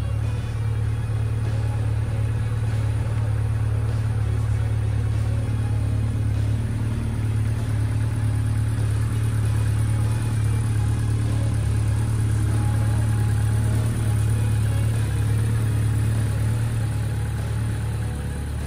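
Honda CB1300SF's inline-four engine running at a steady speed.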